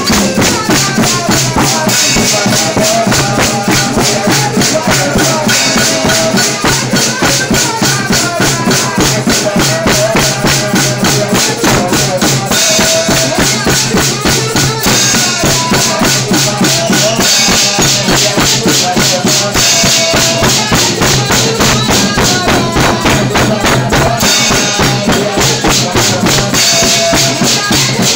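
Loud church worship music: tambourines and drums keep a fast, steady beat while voices sing over it.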